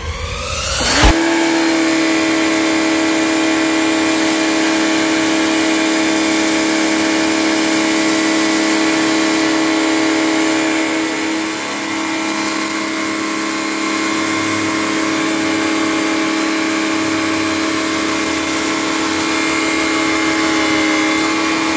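Maxipro MX-301 electric pressure washer running: its motor and pump rise in pitch over the first second, then hold a loud, steady whine with the hiss of the water jet. The pitch dips briefly once near the middle.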